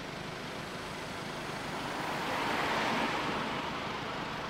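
Road traffic: a car driving past, its tyre and engine noise swelling to a peak about three seconds in and then fading.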